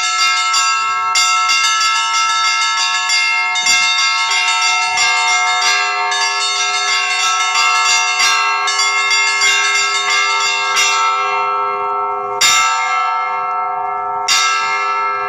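Russian Orthodox church bells being rung: rapid strikes on the small high bells over the sustained ringing of larger bells. After about eleven seconds the ringing thins out to single strikes about every two seconds.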